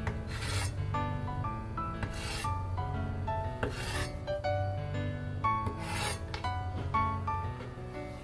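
Chinese cleaver slicing down through a block of firm tofu onto a wooden cutting board: four short rasping strokes about every second and a half to two seconds. Background music with a bass line and melodic notes runs underneath.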